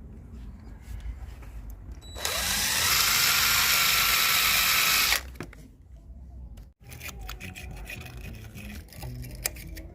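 Drill spinning a wire brush wheel to scour corrosion off a battery terminal: it spins up with a rising whine about two seconds in, runs steadily for about three seconds, then stops. Light clicks and handling of tools and terminal parts before and after.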